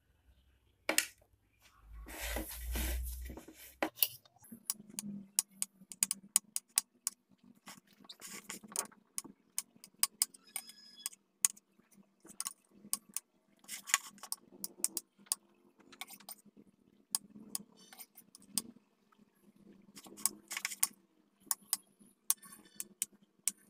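A metal table knife and a ceramic plate clinking and scraping as whipped cream is smoothed onto a cake's sides and the plate is turned, in many sharp light clicks. A louder rustling knock comes about two to three seconds in, and a faint steady hum sits underneath.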